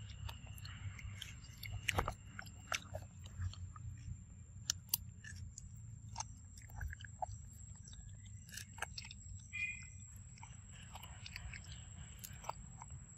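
A long-tailed macaque biting and chewing soft ripe fruit close up, with many small irregular clicks of its mouth and teeth.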